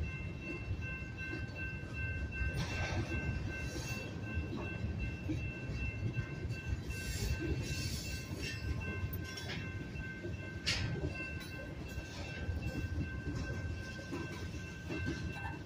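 Freight train of covered hopper cars rolling slowly past on the rails: a steady low rumble of wheels on track, with a few brief sharp sounds, the loudest about eleven seconds in. Steady high tones run throughout.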